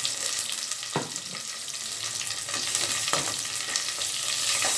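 Hot oil sizzling steadily around fennel seeds, green chillies, curry leaves and freshly added pepper powder in a pressure cooker, with a few clicks of a spoon stirring against the metal.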